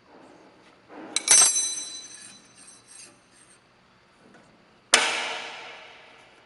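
Two sharp metallic clanks, each ringing on after the strike. The first comes about a second in and is followed by a few lighter clinks; the second, about five seconds in, dies away over a second and a half.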